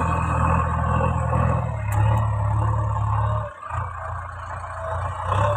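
JCB 3DX backhoe loader's diesel engine running under load as the machine drives over loose soil, dropping off briefly about three and a half seconds in and then picking up again.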